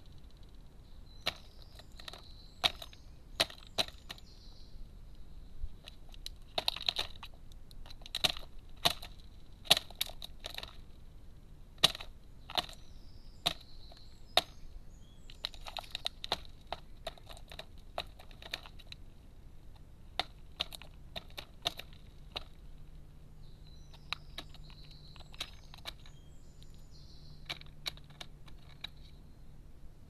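Carrion crow pecking and hammering at walnut shells on a feeding tray: irregular sharp knocks and cracks, often in quick runs of two or three, thinning out in the last third.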